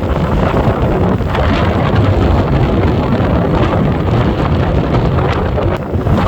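Strong wind buffeting the microphone over the steady rumble of rough, stormy surf.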